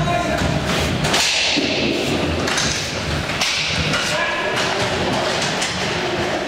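Inline roller hockey play: repeated knocks and thuds of sticks, puck and skates against the rink floor and boards, over a steady rolling noise, with occasional short shouts.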